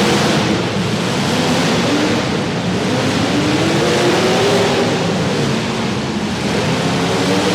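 Several demolition derby cars' engines running and revving together, their pitches rising and falling over a dense wash of noise.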